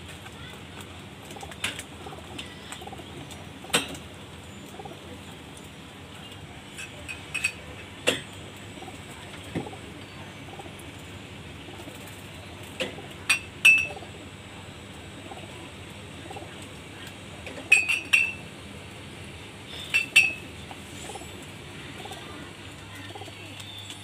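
Caged pigeons cooing faintly, with about a dozen short sharp clicks scattered throughout, some in quick pairs; the clicks are the loudest sounds.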